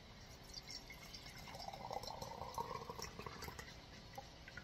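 Water poured from a plastic pitcher into the aluminium base of a stovetop moka pot: a faint trickle that fills out about a second and a half in, then thins to drips near the end.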